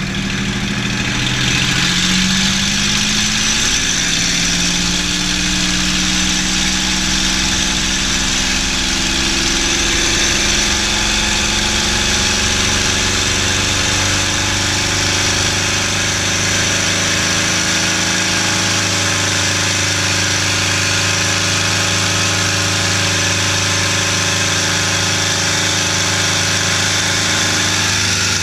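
P-51 Mustang's Merlin V-12 engine and propeller heard from inside the cockpit on the takeoff roll. The engine note climbs over the first couple of seconds as the power comes up, then holds loud and steady at takeoff power, with rushing air and propeller noise over it.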